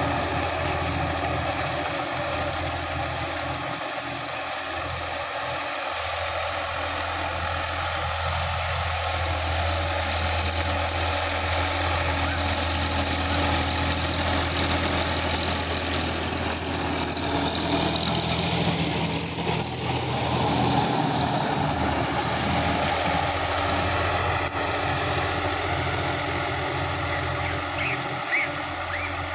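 Sonalika DI-50 RX tractor's diesel engine running steadily while it pulls a rotary tiller through the loose soil of a field.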